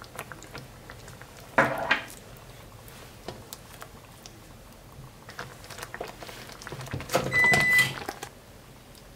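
A silicone spatula stirring and scraping through thick cream sauce in a frying pan, with a louder scrape about a second and a half in. Near the end the pan clatters and a short electronic beep sounds.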